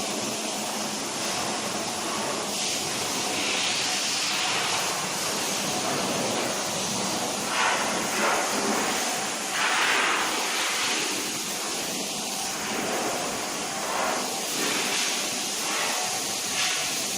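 Steady hissing din of mill machinery inside the plant, with a few brief louder swells.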